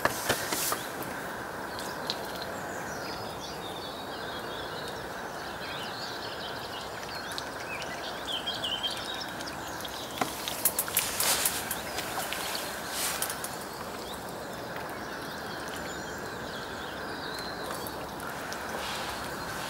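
Ducks dabbling and splashing with their bills in shallow water, giving a few sharp splashy clicks, loudest about ten to eleven seconds in, over a steady background hiss with small birds chirping.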